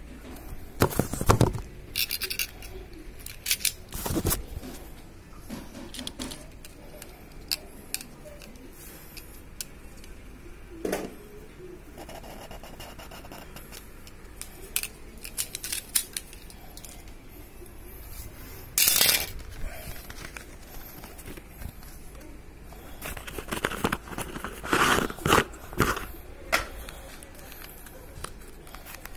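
Irregular scrapes, rustles and clicks of handling: a phone and a plastic windscreen being moved about on cloth. Several louder bursts come through it, the longest a cluster about three-quarters of the way in.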